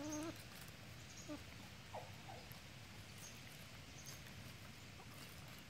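Chickens softly calling while they feed on watermelon: a short wavering cluck at the start and a couple of brief calls about two seconds in, with faint ticks of beaks pecking at the fruit.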